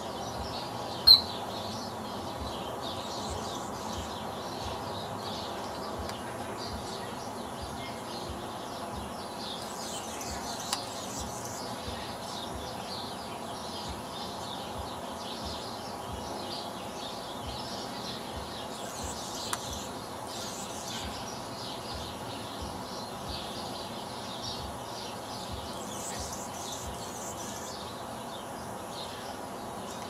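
A male Anna's hummingbird's courtship dive chirp: one loud, very short, sharp high chirp about a second in, made by his tail feathers at the bottom of the dive. Small birds twitter continually around it.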